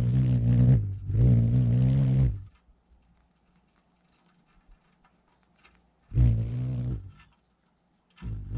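Rufous hummingbird wings humming close by as the bird hovers at the feeder, in four bursts of about a second each: a low pitched buzz with a thin high whine on top, the male's wing trill.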